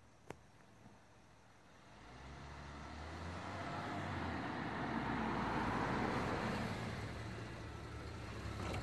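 A road vehicle passing on the street: its tyre and engine noise swells over a few seconds, with a low rumble, and eases slightly near the end. A single sharp click sounds just after the start.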